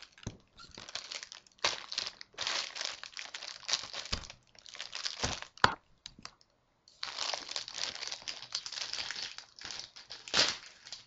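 Plastic packaging crinkling and rustling in irregular bursts as it is handled and opened by hand. A sharp click comes about halfway through, followed by a short pause.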